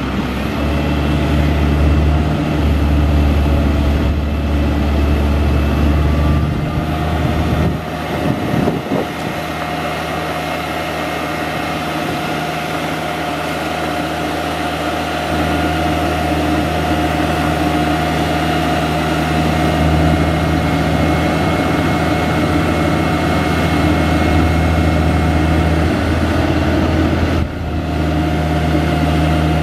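Truck diesel engine, a Caterpillar 3126B, running steadily to power a telescopic crane, with a steady high whine over the engine note. The engine note changes about a quarter of the way in and dips briefly near the end.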